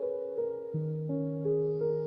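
Soft, slow background music led by a piano or keyboard: single notes entering one after another and left to ring, with a low bass note coming in about three-quarters of a second in.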